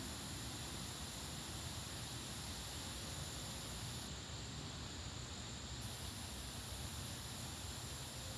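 Steady outdoor ambience ahead of a thunderstorm: wind through the trees, with a thin, steady high insect drone over it. No thunder is heard.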